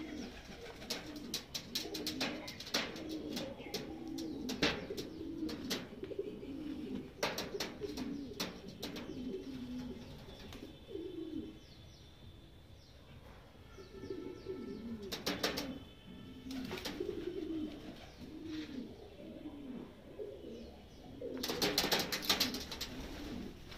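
Domestic pigeons cooing in low, repeated rolling coos, which pause for a few seconds about halfway. Clusters of sharp clicks come in several times over the coos.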